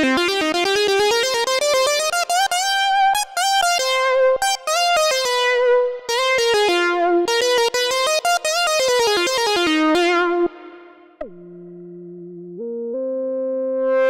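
Moog Subsequent 25 analog synthesizer playing a funk lead patch: quick staccato notes in rising and falling runs. Near the end it switches to a smooth held lead note that drops in pitch, then steps back up.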